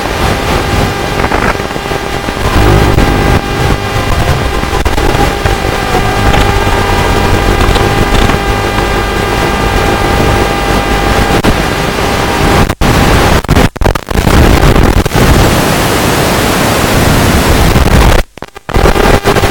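Loud hiss and buzz on the onboard audio feed of an Aurora 90GT micro FPV quadcopter in flight, with steady whining tones running through it. The sound cuts out briefly three times in the second half, with the analog video link breaking up.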